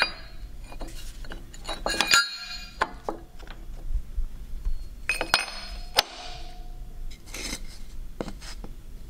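Steel spacer shims clinking and knocking against the steel shoes of a hydraulic exhaust bender as they are set in place: a handful of sharp metal clinks, each with a brief ring.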